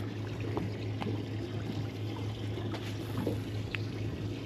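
Water trickling and splashing on a boat, over a steady low hum and a few light clicks.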